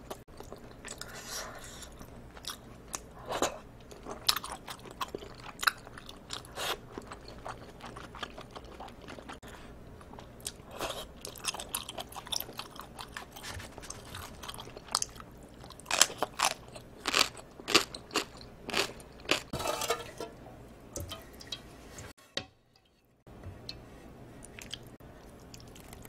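Close-miked chewing of a mouthful of seafood jjamppong noodles: wet mouth clicks and crunchy bites in irregular bursts. The sound cuts out briefly about three quarters of the way through.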